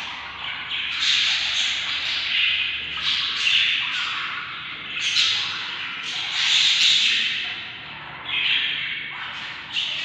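Budgerigar chicks giving a continuous chorus of begging calls that swells and fades in waves every second or two, while a parent feeds them.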